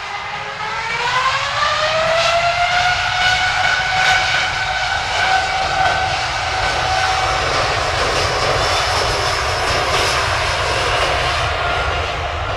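Rolls-Royce Trent 7000 turbofans of a taxiing Airbus A330-800 running. Their whine rises in pitch over the first couple of seconds and then holds steady over a broad rush of engine noise.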